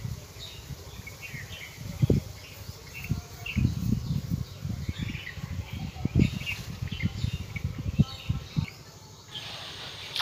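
Small birds chirping repeatedly in quick short notes, over uneven low rumbling thuds on the microphone that fade out near the end.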